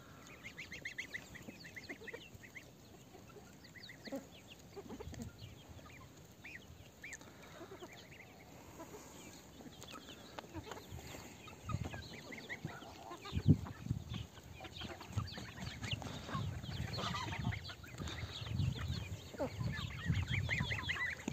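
Chickens clucking softly while they feed on sprouted wheat grass. The clucking gets busier and louder over the second half.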